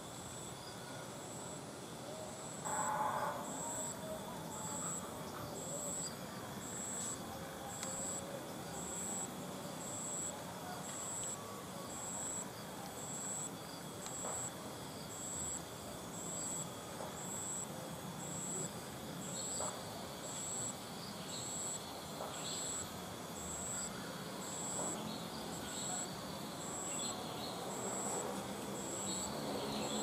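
Insects singing: a steady high drone with a very high chirp repeating about once a second. Short high chirps join in over the second half.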